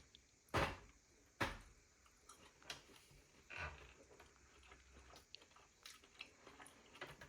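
A person eating lobster meat: faint chewing with a few sharp clicks, the loudest two in the first second and a half.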